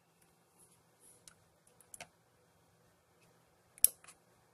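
Scattered light clicks and ticks from handling an opened laptop hard drive and its USB-to-SATA adapter, with one sharper click near the end, over a faint steady hum.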